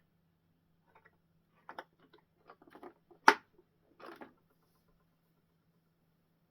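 Small plastic model parts being handled: a scatter of light clicks and taps over about three seconds, with one sharp click near the middle, over a faint steady hum.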